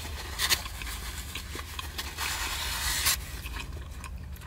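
Eating and tableware noises: a short scrape about half a second in, then a longer scraping rub of about a second near the middle that ends in a knock, over a steady low hum.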